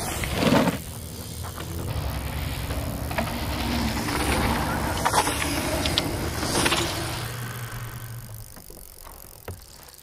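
A jump bike landing with a thump about half a second in. A low rolling rumble follows, building over a few seconds and then fading, with a few sharp clicks on top.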